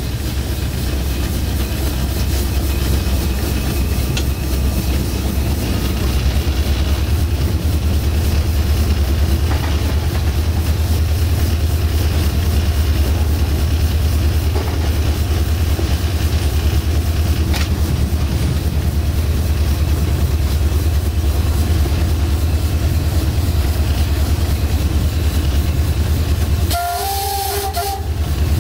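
Diesel locomotive engine running steadily, heard from inside the driver's cab. Near the end the locomotive's horn sounds for about two seconds, a chord of several tones.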